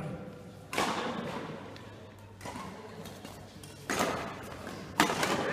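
Badminton racket strikes on a shuttlecock during a doubles rally: sharp smacks about a second apart, echoing in a large sports hall. The loudest hit comes near the end.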